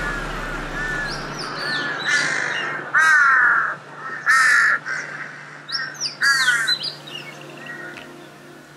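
A crow cawing repeatedly, in a series of short, arched calls, the loudest about three and four seconds in. Shorter, higher bird calls are mixed in.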